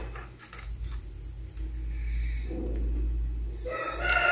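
Faint handling and rustling, then near the end a clamp multimeter on its continuity range starts a steady beep as its probes touch two compressor terminal pins, showing a closed, low-resistance motor winding between them.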